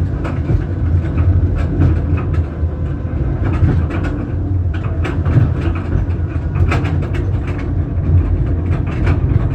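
Rail car of the Gaustabanen tunnel railway running up its steep track inside the mountain. It makes a steady, heavy rumble with repeated clacks and rattles.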